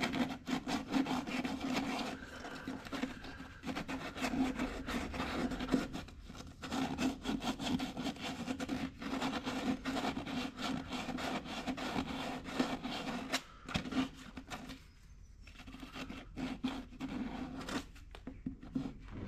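Fibreglass hull being abraded by hand around a through-hull transducer hole, with quick rubbing strokes that pause briefly about fifteen seconds in and again near the end, over a steady low hum.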